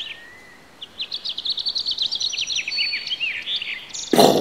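Forest birds singing, with a fast run of high chirps, then about four seconds in a single loud gunshot.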